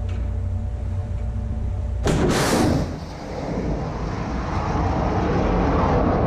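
Sea Viper missile launching from a Type 45 destroyer's vertical launch silo: a steady low ship hum, then about two seconds in a sudden loud blast as the missile fires, followed by a loud rushing roar of the rocket motor that builds and holds.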